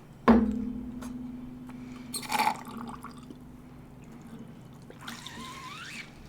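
Juice dribbled and spat from a drinking straw into a glass: a short splash about two seconds in and a softer wet slurping sound near the end. A sharp knock comes about a quarter second in, the loudest sound, with a low hum fading after it.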